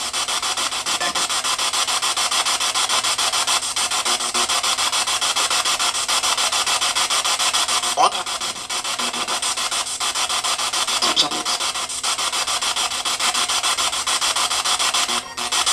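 Spirit box sweeping through radio stations: steady loud static chopped into rapid, even pulses, with brief sliding snatches of sound about eight and eleven seconds in.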